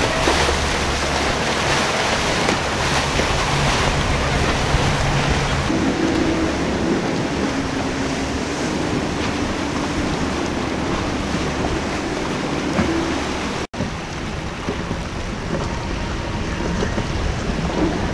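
Outboard engines of passing center-console boats running under way, their drone mixed with rushing wake and surf and heavy wind on the microphone. The sound cuts out for an instant about fourteen seconds in.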